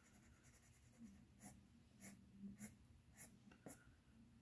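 Faint, short scratching strokes of a Prismacolor colored pencil shading on paper, about two a second, beginning about a second in.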